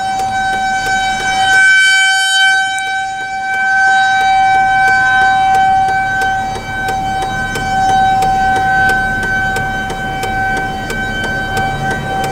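Nuclear plant emergency warning siren sounding a test: one steady tone at a fixed pitch that slowly swells and fades in loudness.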